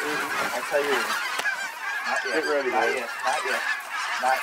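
A large flock of Canada geese honking as it flies low overhead, many calls overlapping in a continuous chorus.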